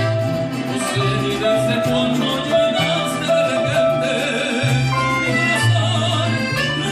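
Live Mexican band of accordion, harp and guitars playing an instrumental passage of a bolero, over a steady plucked bass line.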